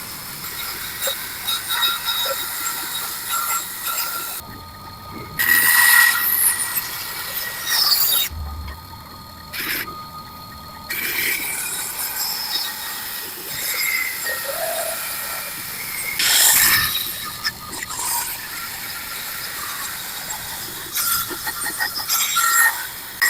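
Hand tools working wood on a homemade wooden slingshot: scraping with squeaks and clicks. The sound changes abruptly every few seconds.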